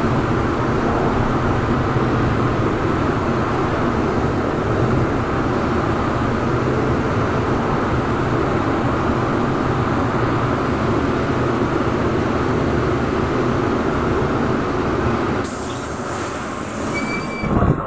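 Cabin noise of a Trolza-5265.00 Megapolis trolleybus in motion: a steady rumble and rattle from the tyres, body and electric drive. About fifteen seconds in the running noise drops off abruptly, and a short high tone and a knock follow near the end.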